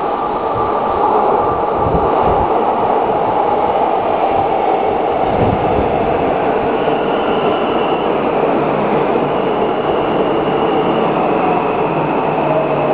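Warsaw Metro train pulling into an underground station: its rumble grows over the first second, then holds steady as the cars run past the platform. A high whine joins about halfway through as the train slows.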